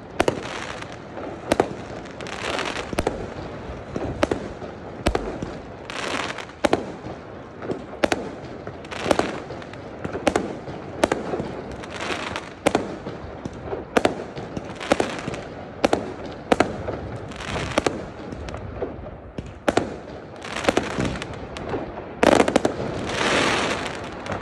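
Aerial fireworks bursting in quick succession: a steady run of sharp bangs, about one or two a second, many followed by a spell of crackling, with the loudest cluster of bangs and crackle near the end.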